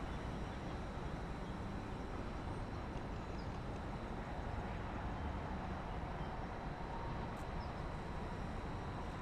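Steady low rumble of outdoor background noise, with a faint thin whine coming in near the end.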